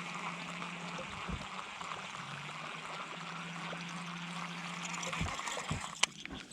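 Steady rush of running water, with a faint low hum underneath that stops about a second in and comes back lower in pitch for a few seconds. A couple of small knocks near the end.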